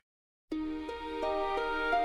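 Gentle instrumental music starts about half a second in: a melody of short notes, about three a second, stepping upward.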